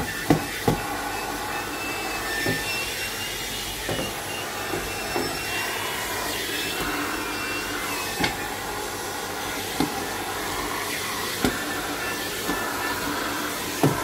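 Canister vacuum cleaner running steadily as its floor head is pushed over carpet, with a few sharp knocks scattered through.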